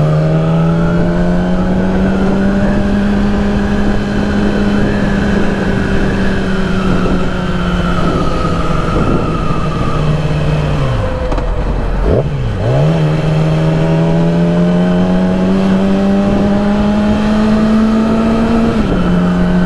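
2008 Yamaha R6's inline-four engine running steadily under way. About ten seconds in, the revs fall away and dip sharply, then climb slowly again, with a small drop near the end.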